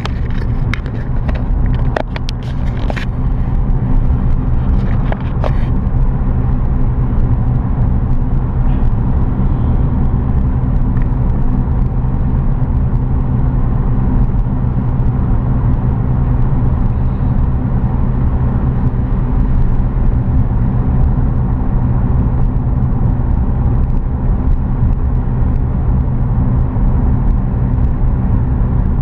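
Steady engine and road rumble of a car driving down a mountain road, with a few sharp clicks in the first few seconds.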